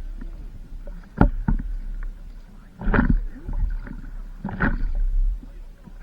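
Stand-up paddle strokes splashing in water, with wind rumbling on the microphone throughout; a sharp knock about a second in and two louder splashes around three and four and a half seconds in.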